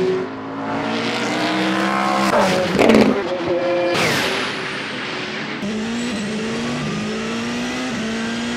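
Endurance race car engines at high revs, the pitch climbing and dropping back in steps as the cars shift up through the gears. About three seconds in, a car passes close with a quick sweep in pitch.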